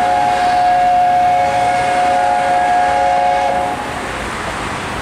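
Chime whistle of the Gresley A4 steam locomotive 60009 Union of South Africa sounding one long blast: a steady chord of several notes that cuts off about three and a half seconds in.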